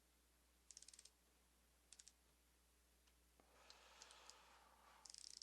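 A socket ratchet clicking in several short runs of rapid clicks as the cylinder head bolts of a Honda Super Cub engine are run down.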